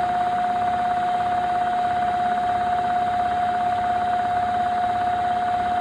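Sportsman 1000 inverter generator head running as a motor from a 72-volt supply, spinning steadily at its medium speed setting with a steady whine over a mechanical hum.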